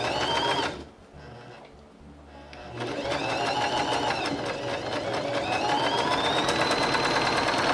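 Singer MX60 electric sewing machine stitching through fabric: a short run of under a second, then after a pause a longer run from about three seconds in. The motor's whine rises and falls in pitch as the machine speeds up and slows, over the rapid ticking of the needle.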